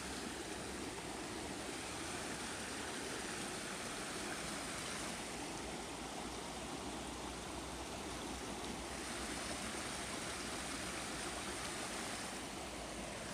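Creek water running in a steady, even rush.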